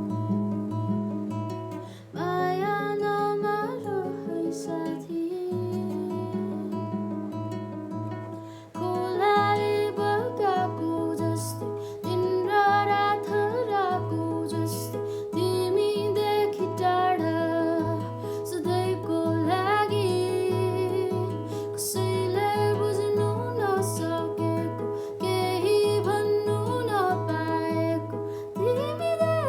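Music: plucked guitar over a steady low pulsing beat, with a voice singing a melody.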